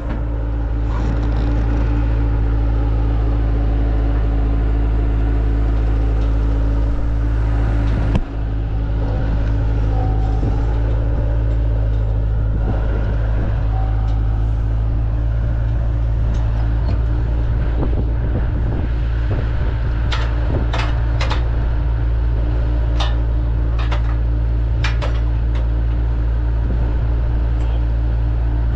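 A vehicle engine running steadily with a low rumble, and a handful of sharp clicks and knocks a little past twenty seconds in.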